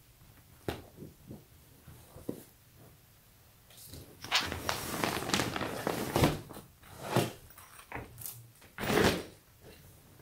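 Clear plastic comforter bag crinkling and rustling as a folded comforter is pulled out of it and set down on a cardboard box, with a few soft thumps. A few light handling clicks come first; the loud rustling starts about four seconds in and dies away near the end.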